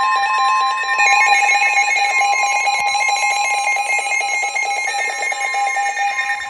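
Emergency weather alert tones: a steady high alarm tone overlapped by a rapid, pulsing electronic beeping.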